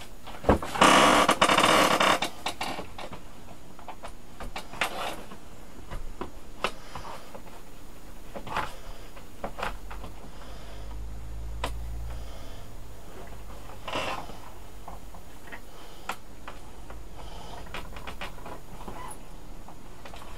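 Plastic bottom cover of an MSI GF63 laptop being prised off around its edge: a loud scraping rustle about a second in, then scattered small clicks and snaps as the clips let go.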